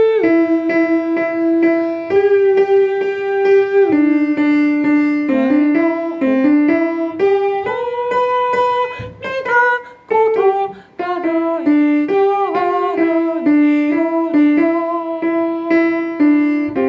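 Music: a melody of held notes moving step by step over an even piano or keyboard accompaniment.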